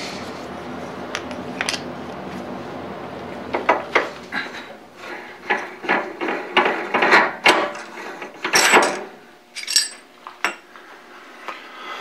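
A steady machine hum, then from about three and a half seconds in a quick run of sharp metallic clinks and clicks as the finished metal compound screw is loosened and drawn out of the lathe spindle. The hum dies away near the end.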